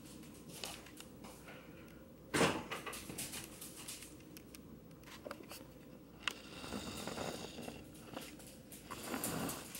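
Quiet indoor knocks and movement noises, with one sudden thump about two and a half seconds in, the loudest sound.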